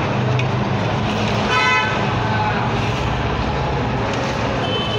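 Chicken curry cooking in a pan, a steady sizzling hiss. About one and a half seconds in comes one short vehicle horn toot.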